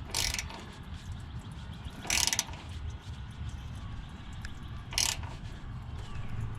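Ratchet wrench clicking in three short bursts as it tightens the float-bowl nut on a Honda GX340's carburetor, with small ticks of the tool between them.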